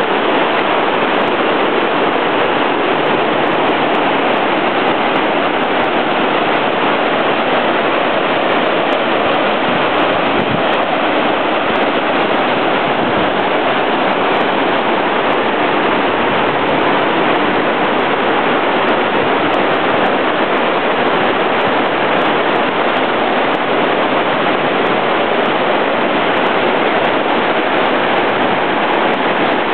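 Fast mountain stream rushing, a loud, steady wash of white water that never changes.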